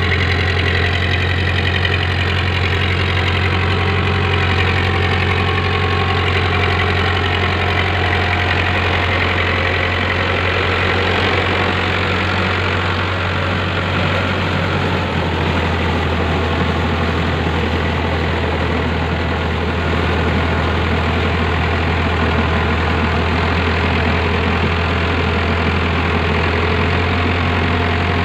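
Powertrac Euro 55 tractor's diesel engine running steadily under load, pulling a rotavator that churns through wet paddy-field mud. The engine note shifts slightly about halfway through.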